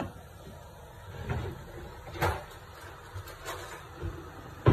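Cookware being handled on a stovetop: a handful of short knocks and clatters over a low background, the loudest a little past two seconds in.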